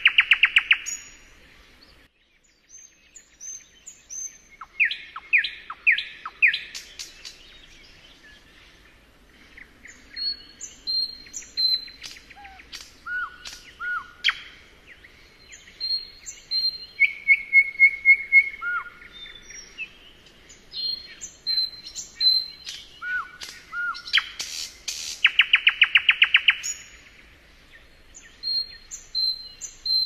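Nightingale singing: a run of varied phrases separated by short pauses, mixing clear whistled notes with fast-repeated notes. Loud rapid repeated-note phrases come at the very start and again about 25 seconds in.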